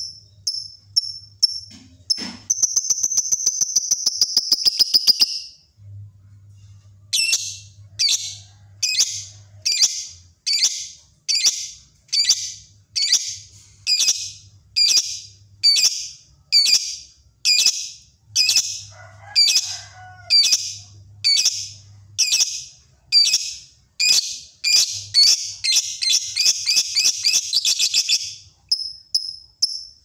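Lovebird calling: a rapid high trill of about three seconds near the start, then a long run of sharp, high chirps a little over one a second, quickening into a fast trill near the end.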